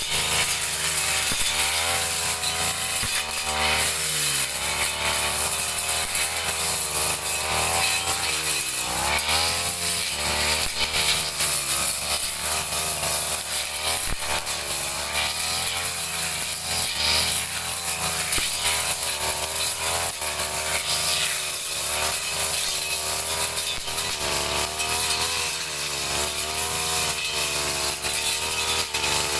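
Two-stroke brush cutter (grass-cutting machine) running under load, its engine pitch rising and falling continually as it cuts through grass and brush.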